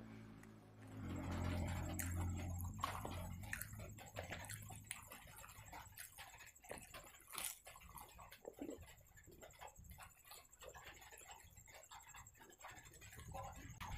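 Close-miked eating sounds: a person chewing soft fried puri and curry with wet mouth clicks and smacks, and fingers tearing the bread and scooping gravy. A low steady hum for about two seconds near the start.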